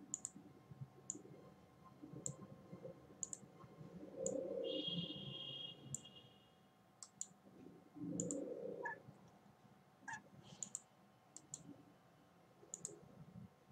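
Computer mouse clicking: about fifteen sharp, irregularly spaced clicks while selecting, copying and pasting on screen. Twice, around four and eight seconds in, a louder muffled sound lasting about a second cuts in; the first carries a steady high tone.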